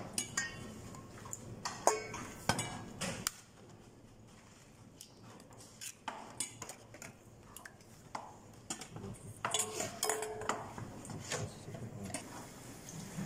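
Dishes and utensils clinking and knocking as they are handled in a kitchen, in scattered sharp clicks, with a quieter lull a few seconds in.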